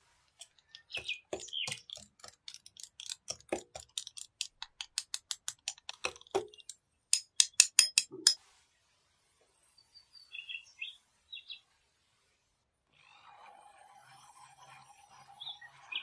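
Small wire whisk clicking and rattling against the walls of a plastic measuring jug as cocoa powder and sugar are beaten into milk, in quick strokes that speed up and grow loudest before stopping about eight seconds in. A few light taps follow, then a faint steady hum near the end.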